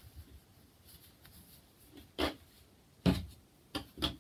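Hands working thick merino wool roving into a hand-knitted purl stitch: about four short soft thuds and rustles in the second half as the chunky yarn is pulled and pressed against the tabletop.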